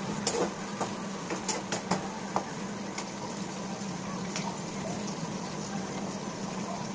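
Sliced onions sizzling steadily in hot oil in a wok over a high gas flame, with a few sharp crackles in the first couple of seconds and a steady low hum underneath.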